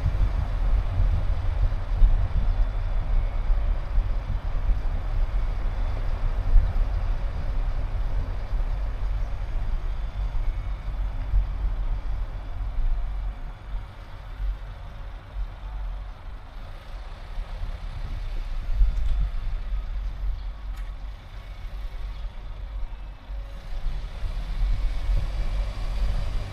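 Car on the move: a steady low rumble of road and engine noise, easing off twice for a few seconds.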